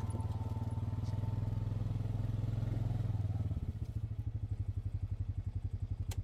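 Honda Pioneer side-by-side's engine idling with an even pulsing beat, settling to a lower, softer idle about halfway through; a sharp click comes near the end as the engine is shut off.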